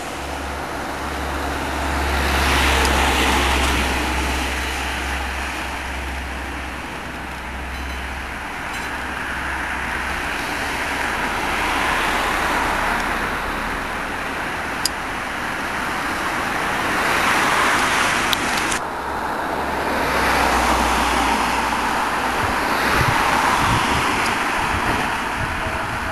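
Road traffic passing, vehicles swelling up and fading away one after another over a low hum.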